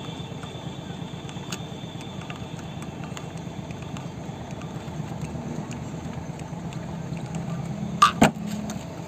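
Pliers working on the metal valve housing of a Tullu pump, with two sharp clicks close together near the end. A steady low rumble runs underneath.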